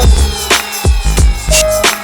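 Background music: an electronic hip-hop beat with heavy bass, regular drum hits and held synth notes.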